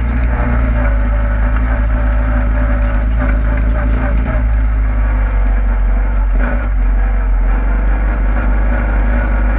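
Engine of a ridden off-road vehicle running steadily as it crosses rough grass, its pitch drifting slightly with the throttle, with a heavy low rumble.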